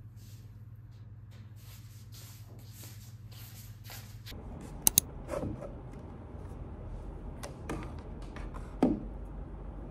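Handling noise of small objects: soft clicks of nail sample displays being moved on a shelf over a steady low hum, then sharp clicks and knocks of a small glass essential-oil bottle and an aroma diffuser being handled on a counter, the loudest a double click about five seconds in and a knock near nine seconds.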